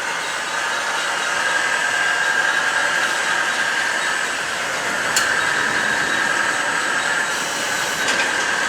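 Steady whine of radio-controlled model construction machines' electric drives and gearing, with a sharp click about five seconds in and another near the end.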